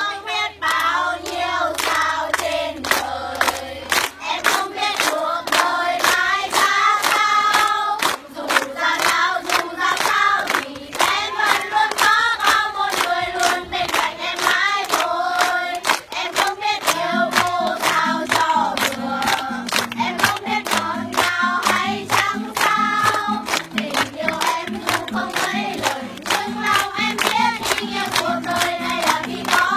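A group of schoolchildren singing together to an acoustic guitar, with sharp, evenly spaced strokes keeping the beat. Lower notes join in about halfway through.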